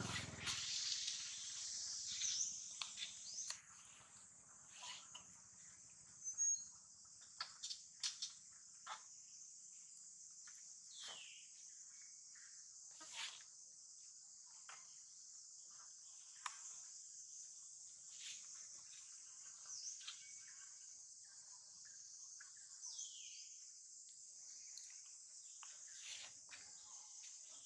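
Steady high-pitched buzzing of insects, with scattered faint clicks and taps and a few short falling bird chirps. A brief low rumble comes at the very start.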